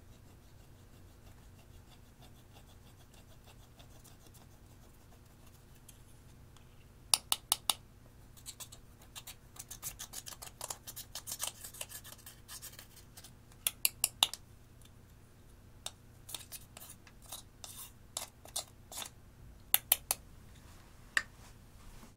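A small metal tool scraping and breaking pressed eyeshadow out of a plastic compact, crumbling the powder. It is faint for the first few seconds, then comes as scratchy scraping broken by runs of sharp clicks and taps of metal on the plastic compact.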